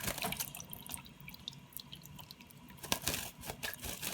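Running bathroom-sink tap with water splashing and dripping as a green-cheeked conure bathes in cupped hands. A louder flurry of splashes comes about three seconds in.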